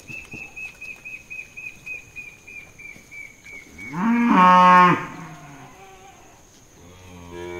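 A loud farm-animal call about four seconds in, stepping down in pitch, and a lower, fainter call near the end. Before it, a faint high chirping repeats about four times a second for the first few seconds.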